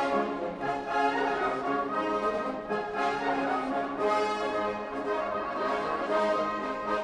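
Orchestral music with prominent brass, sustained chords that shift every second or so.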